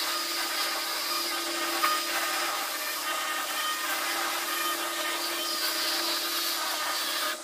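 Laminator running: a steady motor whir with a constant hum underneath, which cuts off suddenly near the end.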